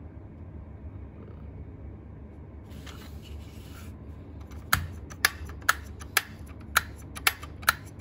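Plastic lid-release lever on the handle of a Midea MK-12S03E electric kettle being pressed over and over: a string of sharp clicks, about two a second, starting about halfway through. Before the clicks there are soft rubbing and handling sounds on the kettle.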